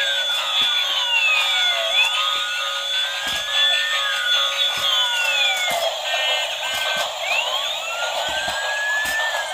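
Several battery-powered toy emergency vehicles playing their electronic siren sounds at once: high-pitched wailing tones that rise and fall and overlap, over steady electronic tones. A short run of quick stepped beeps comes in about six seconds in.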